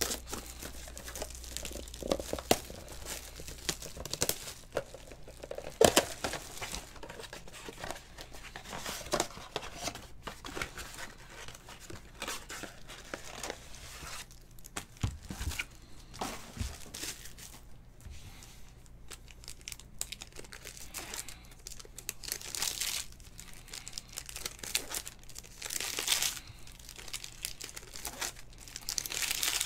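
Foil trading-card pack wrappers crinkling and tearing as packs are ripped open, with scattered sharp rustles and clicks from handling, louder bursts of tearing near the end. A faint steady low hum lies underneath.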